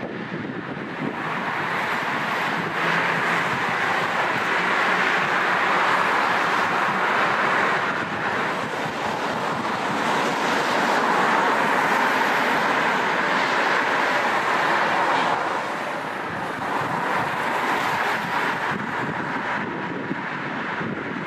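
Jet engines of an Emirates Airbus A380-861, four Engine Alliance GP7200 turbofans, making a steady rushing roar with wind buffeting the microphone. The roar swells about two seconds in, holds loud through the middle, and eases off late on.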